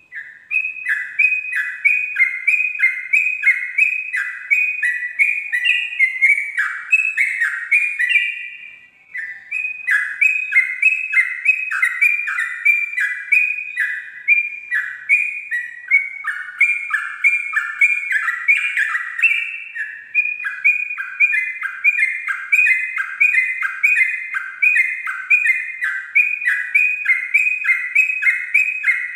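Yellow-vented bulbul (trucuk) singing a long 'ropel' song: a fast, continuous string of downslurred whistled notes, about three a second, with a brief pause about nine seconds in.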